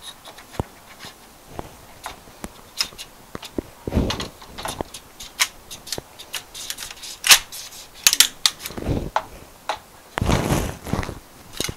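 Handling noise from a fiberglass vertical antenna being twisted by hand to join its top section to the lower section: scattered sharp clicks and taps, with a few longer rubbing rumbles about four, nine and ten seconds in.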